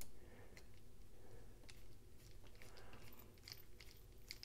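A screwdriver turning small screws into a folding knife's handle, heard as faint, irregular little clicks, more frequent toward the end.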